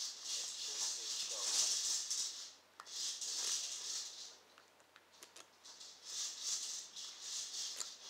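A steel rake pick scraping rapidly in and out of the keyway of an old five-pin Lips padlock under a tension wrench, a dry metallic rattle of the pin tumblers. It comes in three spells with short pauses between.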